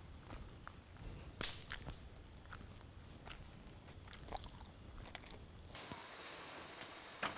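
Small campfire crackling with scattered sharp pops, the loudest about a second and a half in. Near the end the low rumble falls away and a steady hiss takes over.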